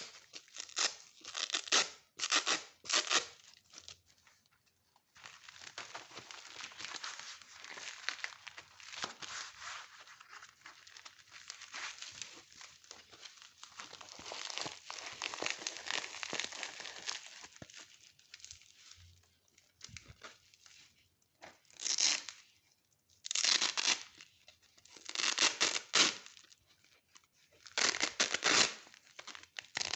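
Hook-and-loop (Velcro) fastener being ripped apart. There are several short rips in the first few seconds, a long stretch of continuous crackly tearing through the middle, and then four or five separate loud rips near the end.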